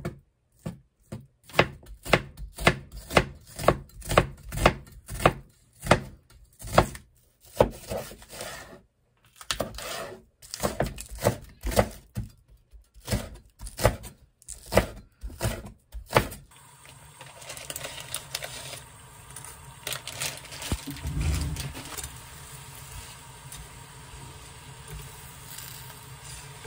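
Kitchen knife chopping food on a wooden cutting board: sharp separate strokes, about two a second. About sixteen seconds in it gives way to the steady hiss of water boiling in a pan with spaghetti cooking in it, with one duller knock a few seconds later.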